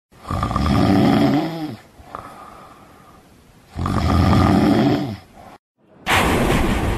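A person snoring: two loud, rasping snores a few seconds apart with a quieter breath between. A loud rushing noise starts about six seconds in.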